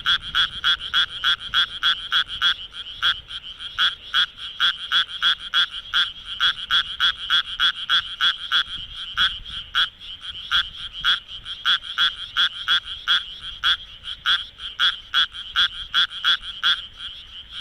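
Japanese tree frog calling: a fast, steady series of short croaking notes, about four a second, made with its vocal sac inflating.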